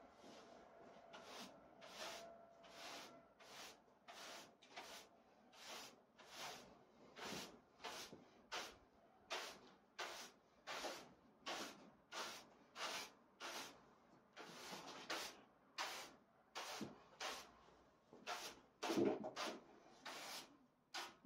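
Push broom with stiff plastic bristles sweeping a dusty concrete floor in short, regular strokes, about one and a half a second. One heavier stroke near the end.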